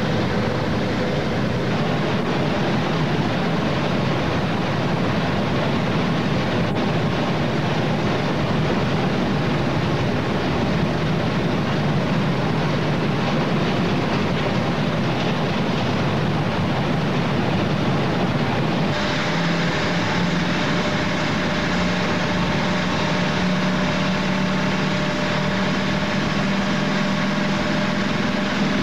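A ship's engine running steadily aboard the vessel, a constant drone with a rushing hiss over it. About two-thirds of the way through the sound shifts, with a stronger low hum and more hiss coming in.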